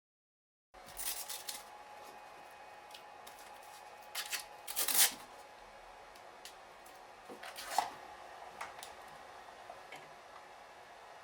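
Small clicks, rustles and scraping of something being handled, coming in after a second of dead silence, with the loudest cluster about five seconds in, over a faint steady hum.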